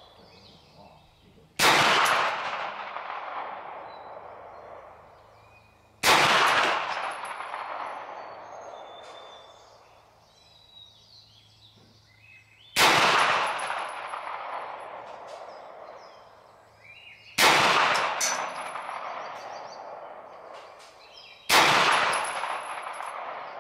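Five single shots from a Hi-Point 995TS 9mm carbine, fired a few seconds apart, each a sharp crack followed by a long echo that dies away over several seconds.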